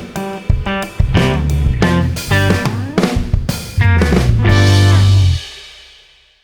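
Background music, electric guitar and bass with a drum kit, ending on a held chord that fades out.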